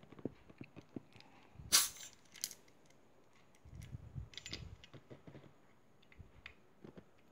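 Small clicks and taps of metal and plastic as a refillable CO2 capsule is worked into the grip of a CO2 airgun pistol, with a brief sharp burst about two seconds in and another soon after, then low handling rubs.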